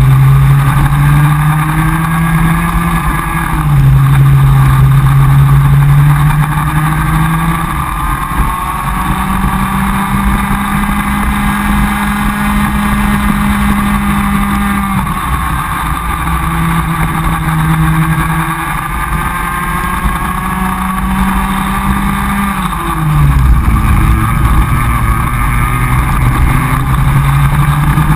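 Comer cadet kart's two-stroke engine heard onboard at racing speed, held near the top of its revs along the straights. It dips briefly about three and a half seconds in, then drops sharply about 23 seconds in as the kart slows for a corner, and climbs again.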